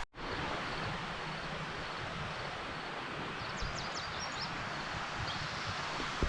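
Outdoor ambience: a steady rushing hiss with songbirds chirping, a quick cluster of short high chirps about three and a half seconds in and one more near five seconds.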